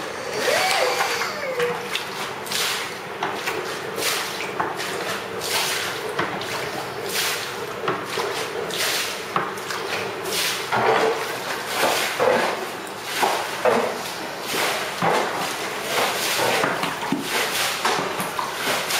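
A bucket being scooped across a flooded tiled floor and emptied out, again and again: repeated splashes of water and scrapes of the bucket on the tiles.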